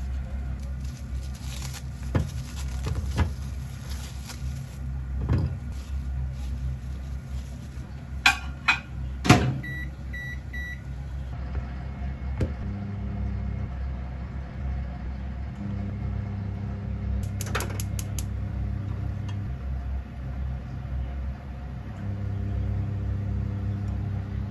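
Kitchen cooking sounds: a spatula and chopsticks knocking and scraping against a metal frying pan, over a steady hum. Three short electronic beeps sound about ten seconds in.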